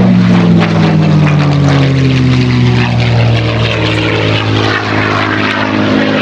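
P-51D Mustang's Packard Merlin V-12 engine and propeller running at high power as the fighter passes and pulls up into a climb. The engine note falls steadily in pitch as it draws away.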